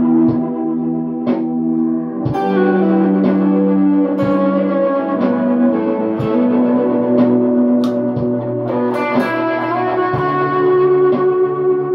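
Clean Squier Telecaster electric guitar played as an ambient improvisation through reverb and delay pedals (Old Blood Noise Endeavors Dark Star and Procession reverbs, ARP-87 delay) into a clean amp. Single notes are picked about once a second and each rings on, overlapping the last into a sustained wash of layered tones.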